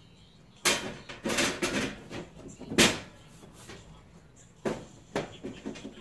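Metal breaker panel cover knocking and scraping against the panel box as it is fitted back on: a handful of sharp clanks, the loudest about halfway through.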